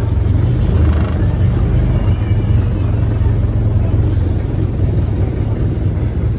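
A large bangka's engine running steadily, with a continuous low hum.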